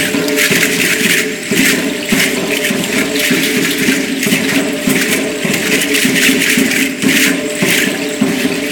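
Aztec dancers' ayoyote ankle rattles (clusters of seed-pod shells) shaking in quick rhythmic bursts with the dance steps, over accompanying music.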